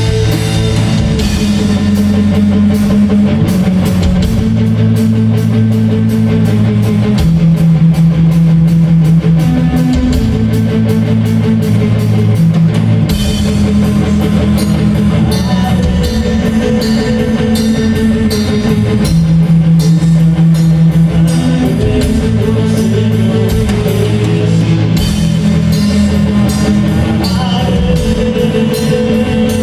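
Loud rock music with a drum kit and guitar, the drums hitting rapidly and steadily over held bass notes that change every second or two.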